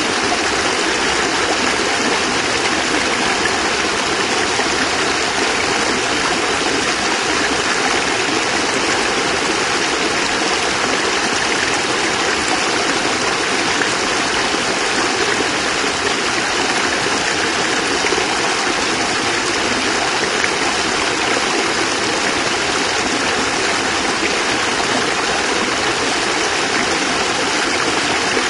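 Small cascade of water splashing and rushing, a steady, even noise.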